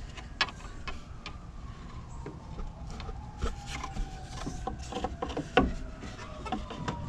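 Long flathead screwdriver scraping and clicking inside the engine bay as it is worked against the cooling fan assembly's locking tabs to pry them out. The scrapes and taps come irregularly, several a second, with a few sharper clicks.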